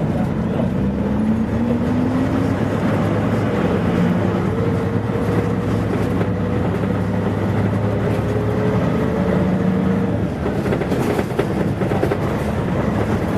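Mitsubishi P-MP218M bus's diesel engine and drivetrain running under way, heard from inside the cabin. The pitch rises over the first few seconds and again through the middle as it pulls, with a brief drop in level about ten seconds in.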